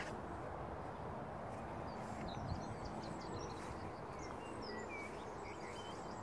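Steady outdoor background noise with small birds chirping and whistling, a scatter of short high calls starting about a second and a half in.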